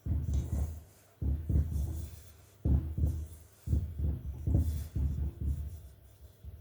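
Hands rubbing butter into flour in a mixing bowl, giving a run of muffled low thumps and rubs, roughly one a second.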